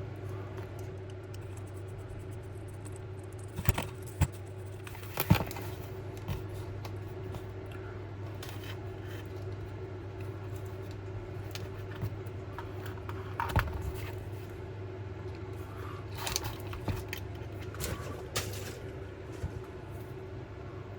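Scattered clicks and light taps of small tools and metal parts being handled while a Hornby B12 model locomotive's base plate is taken off, a few sharper knocks among them, over a steady low hum.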